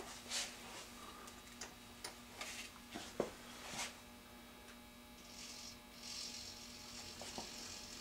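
Steady mains hum with scattered light clicks. From about five seconds in, a soft high whir as the HO-scale car dump's mechanism starts tilting the boxcar.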